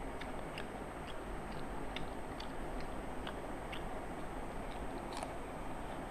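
Eating sounds of rice and curry being eaten by hand: scattered small clicks and smacks of chewing and of fingers working rice on brass plates, a few each second, over a steady hiss.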